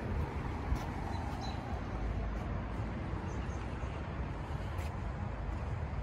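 Steady low outdoor rumble of wind on the microphone, with a few faint bird chirps.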